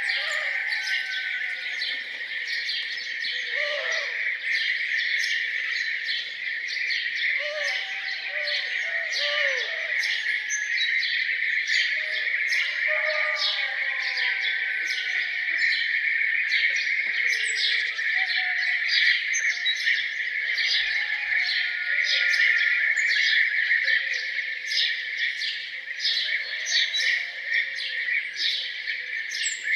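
A dawn chorus of many birds singing and chirping together: a dense steady high chorus with rapid chirps over it, and lower rising-and-falling calls coming and going.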